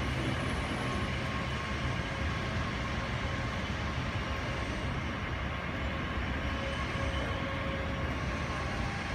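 Airbus A320-232's IAE V2500 turbofan engines at idle thrust as the jet taxis in slowly: a steady low rumble with a faint whine over it.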